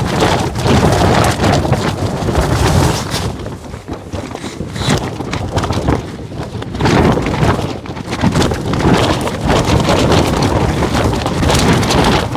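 Gale-force wind gusting against a tunnel tent, with heavy wind noise on the microphone. It surges and eases, with gusts the camper puts at 70 km/h at least, and dips briefly a few seconds in before picking up again.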